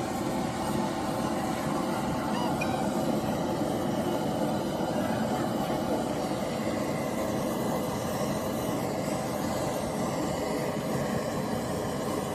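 Steady outdoor street noise: a continuous, even rumble and hiss with no distinct events, typical of traffic background.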